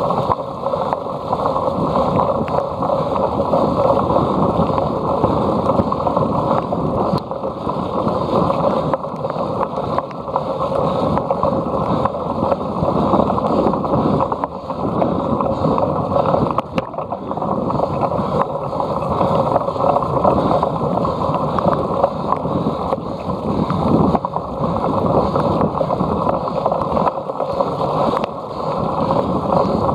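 Steady, muffled rush of wind on the microphone and riding noise from a cyclocross bike in motion over rough ground.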